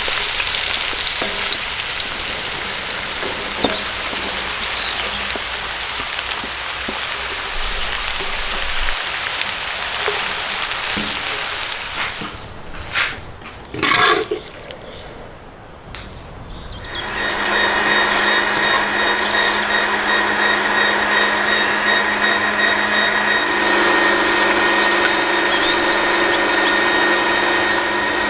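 Food sizzling as it fries for the first dozen seconds, followed by a short quieter spell with a few knocks. Then a small motor starts running with a steady hum and whine.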